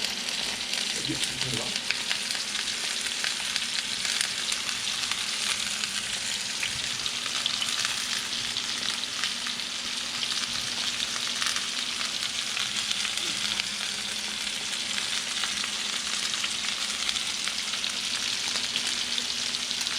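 Bacon-wrapped hot dogs, onions, bell peppers and chilies sizzling in a pan over low heat, a steady hiss with fine crackling.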